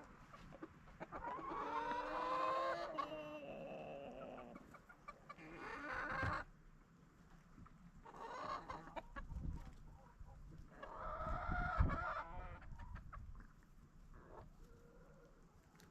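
Backyard chickens clucking and calling in several separate bouts, with a low rumble under the calls around the middle.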